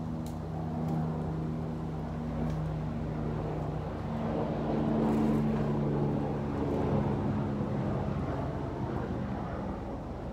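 A steady engine drone with a low hum, growing louder in the middle and easing off near the end.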